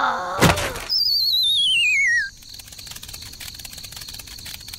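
Cartoon sound effect: a wavering whistle that falls steadily in pitch for about a second and a half, starting about a second in. It follows a short squeaky cartoon-voice sound and a knock. After it comes faint cricket-like chirping ambience.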